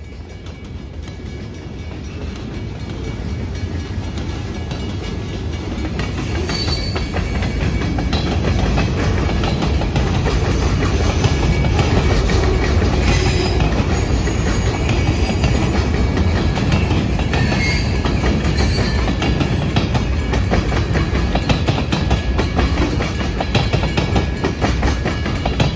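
Freight train of boxcars and tank cars rolling past, wheels clicking over the rail joints over a heavy rumble. It grows louder over the first ten seconds, with a few brief high squeaks.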